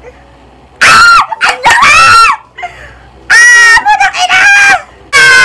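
A man's very loud, high-pitched squeals, about five or six short shrieks in quick clusters, as he gushes with excitement.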